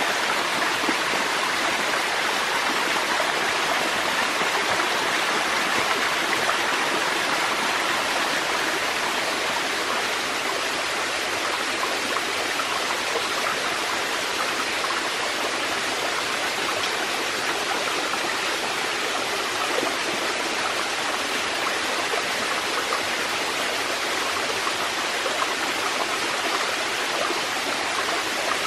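Small waterfall cascading down a rocky forest stream, the water rushing and splashing steadily over the rocks.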